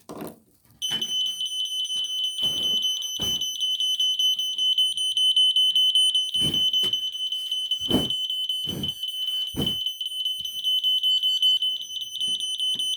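Combination smoke/CO detector sounding its alarm, set off by smoke: a shrill, rapidly pulsing high beep that starts about a second in and keeps going. Several short dull knocks come through under it.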